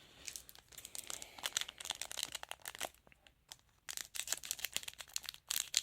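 Trading card pack wrapper being torn open and crinkled by hand, a run of crackling rustles, then a short pause about three seconds in, then more crinkling.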